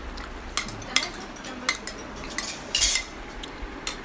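Spoons clinking and scraping against plates and bowls as several people eat, an irregular scatter of sharp clinks with a louder clatter nearly three seconds in.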